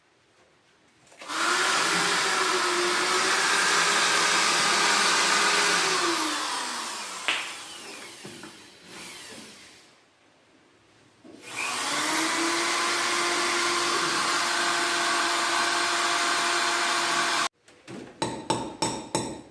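Electric drill boring the centre hole through a homemade clock face, running twice. The first run slows and winds down; the second holds a steady pitch and cuts off suddenly. A quick series of sharp clicks and knocks follows near the end.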